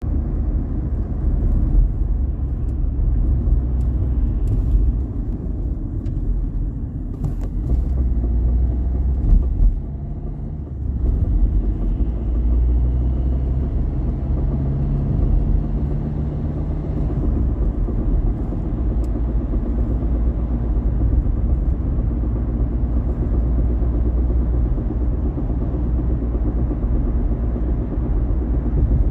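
Vauxhall Corsa D being driven: steady road and engine rumble, the engine note rising for a few seconds in the middle, with a few short sharp knocks and taps. These are the knocking noises heard when accelerating and decelerating, still undiagnosed after new coil springs and rear shocks.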